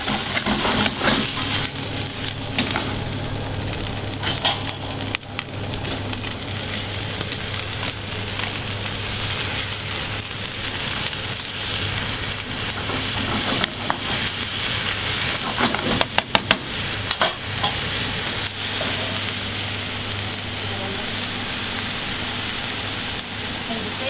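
Greens sizzling in a frying pan over a gas flame as they are stirred with a wooden spatula, with a few sharp knocks about four seconds in and a quick cluster of them past the middle.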